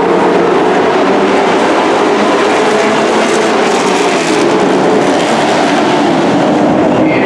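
Engines of a pack of dirt-track race trucks running at racing speed, a steady loud din that swells as one truck passes close about four seconds in.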